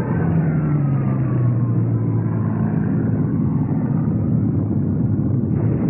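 Propeller aircraft engine droning past, its pitch falling over the first two or three seconds and then holding steady, over a constant rumble.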